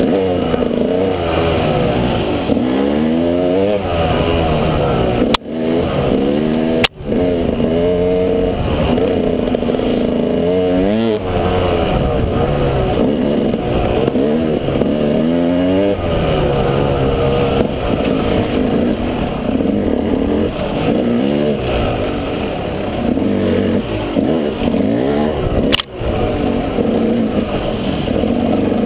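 Off-road vehicle engine being ridden hard, revving up and falling back over and over every second or two. A few short sharp knocks break in, about five and seven seconds in and again near the end.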